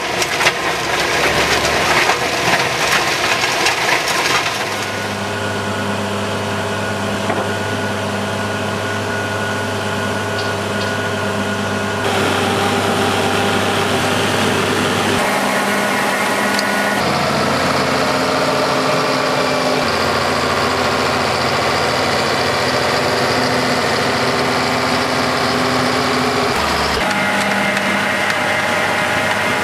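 Rock and soil clattering through the rotor of a tractor-mounted stone crusher for the first few seconds. Then a tractor engine runs steadily, its pitch stepping up or down abruptly several times.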